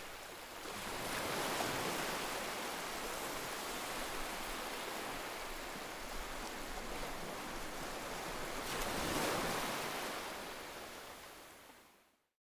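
Ocean surf: a steady rush of breaking waves that swells twice, about a second in and again near the end, then fades out.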